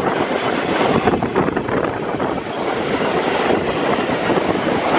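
Ore gondola wagons of a freight train rolling past close by at high speed: a steady loud rumble of steel wheels on the rail, with rapid clatter of wheels over the rail joints.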